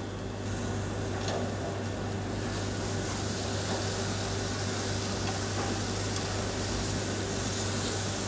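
Marinated chicken breast pieces sizzling on a commercial char-grill's steel grates as they are turned with tongs, over a steady low hum. The sizzle gets brighter a couple of seconds in.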